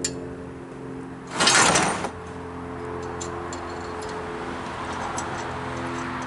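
A brief, loud metallic scrape and clatter of the tire changer's bead breaker parts being handled, about a second and a half in, over soft background music, with a few light clicks.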